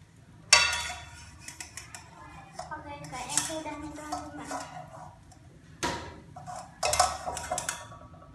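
Metal spatula scraping and clanking against a stainless steel frying pan as a fried egg is turned and lifted out. There is a sharp clank about half a second in, and two more near the end.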